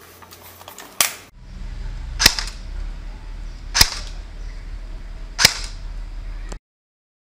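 Cyma AK Spetsnaz electric airsoft rifle (AEG) firing three single shots about a second and a half apart, each a sharp snap, as it is shot through a chronograph to measure its muzzle velocity.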